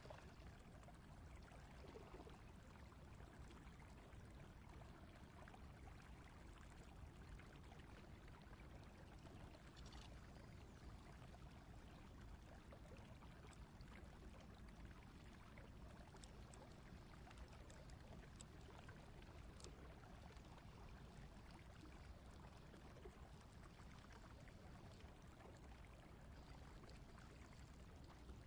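Faint, steady rush of flowing water, close to silence, with a few tiny ticks.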